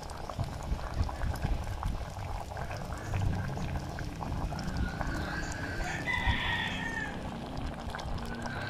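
Fish soup boiling steadily in a metal pot, a continuous crackly bubbling. About five seconds in, an animal gives a long call lasting around two seconds.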